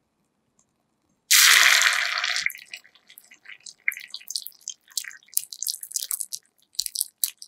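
Egg-and-vegetable mixture poured into hot oil in a miniature wok. A loud burst of sizzling starts suddenly about a second in and dies down within a second. It settles into scattered crackling and popping as the omelet cooks.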